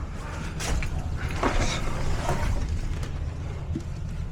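A few short scrapes and knocks of equipment being handled, over a steady low hum.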